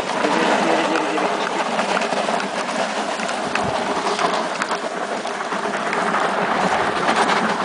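A car tyre dragged over a dirt and gravel path by a harnessed dog: a steady gritty scraping full of small ticks of grit.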